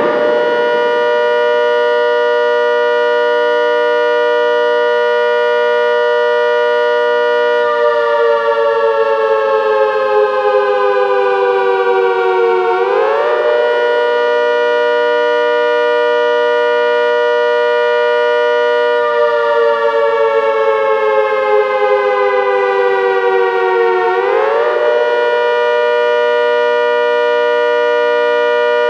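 Synthesized ACA Hurricane 130 dual-tone siren sounding the Attack signal. A two-note chord holds steady for several seconds, then slides down in pitch over about five seconds and quickly climbs back to full pitch. The cycle happens twice.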